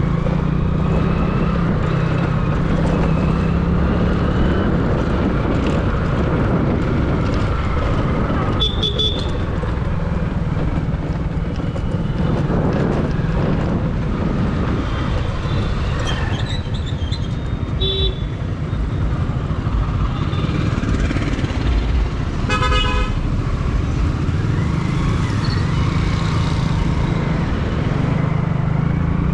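Steady road traffic and vehicle engine noise, with a vehicle horn honking briefly about three-quarters of the way through.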